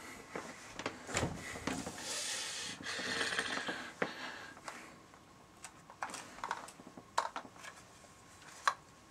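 Quiet handling noises: a soft hiss for a second or so about two seconds in, then a few light clicks and knocks.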